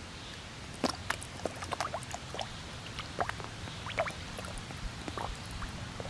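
Koi feeding on floating pellets at the pond surface, their mouths making irregular pops and gulps at the water, starting about a second in.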